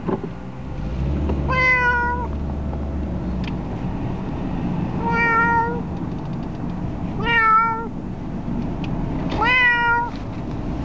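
A domestic cat shut in a mesh pet carrier meowing four times, each call drawn out for about half a second, the last rising at its start: the upset cries of a cat that dislikes the car trip to its vaccination. A steady low car rumble runs underneath.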